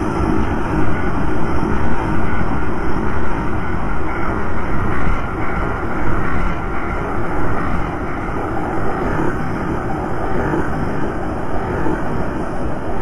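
Experimental noise-drone recording: a loud, steady, dense rumbling roar with no clear notes, beat or voice, heaviest in the low end.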